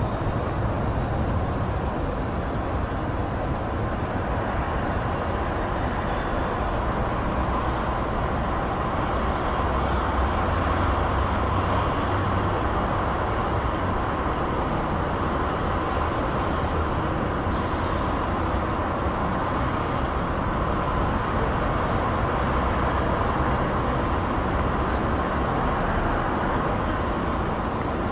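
Continuous traffic on a distant busy motorway: a steady low rumble and tyre hiss with no single vehicle standing out.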